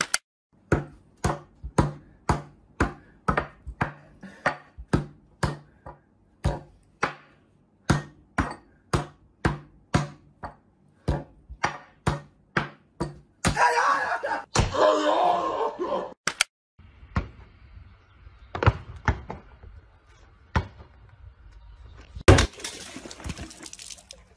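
A steady run of sharp knocks on a wooden tabletop, about one and a half a second, for some thirteen seconds, then a few seconds of loud rushing noise, then quieter scattered clicks and one loud knock near the end.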